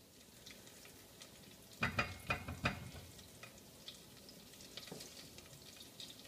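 Butter crackling faintly as it melts in a stainless steel pot while a spoon stirs it. About two seconds in, the spoon knocks against the pot four times, each knock ringing briefly.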